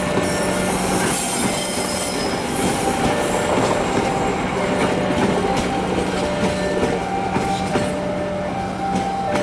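Passenger carriages of the KA Matarmaja train rolling past at close range, with steady wheel-on-rail noise and irregular clicks of the wheels over the rail joints. Over it the level crossing's electronic alarm sounds, alternating between two notes while the gates are down.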